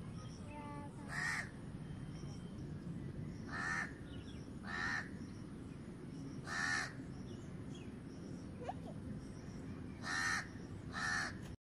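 A crow cawing: about six short single caws at uneven intervals, over a steady low background rumble.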